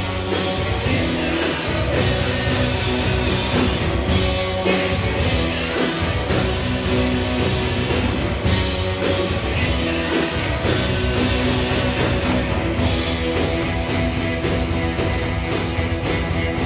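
A live rock band playing, with electric guitars and drums, loud and continuous.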